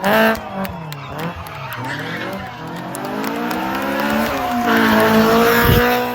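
Rally car engine revving hard, its pitch rising and falling through gear changes. It is held high and loud for the last couple of seconds.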